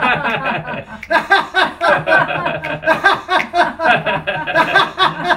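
A few people laughing together on cue as a deliberate laughter exercise, in quick repeated bursts of laughter with a short lull about a second in.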